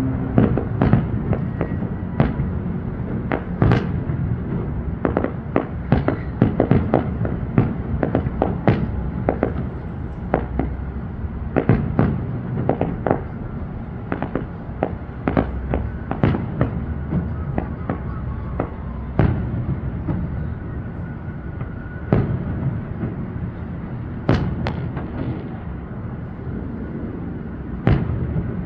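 Fireworks display: a rapid string of sharp bangs and crackling shell bursts, thickest in the first half and sparser later, over a steady low background rumble.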